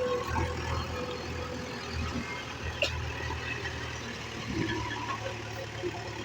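Heavy diesel engine running steadily at a low drone, with a sharp knock a little under halfway through.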